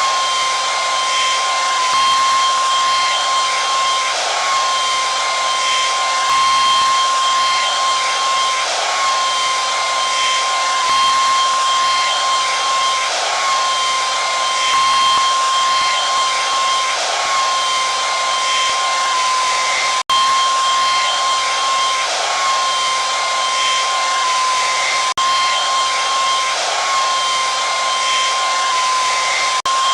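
Hair dryer running steadily: a loud rush of air with a high, steady motor whine. The sound drops out for an instant about two-thirds of the way through.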